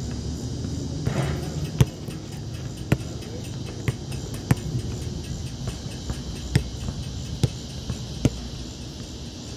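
A basketball bouncing on an asphalt court: about seven sharp thumps at irregular intervals, over a steady high chorus of insects.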